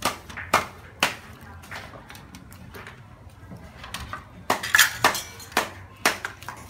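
Cooking clatter: a metal ladle clinking and knocking against a stainless steel pot. A few sharp clinks come in the first second, then a louder run of clinks about four and a half to five seconds in.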